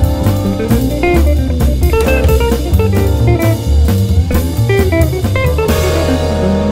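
Background music: a guitar-led track over bass and a steady drum beat.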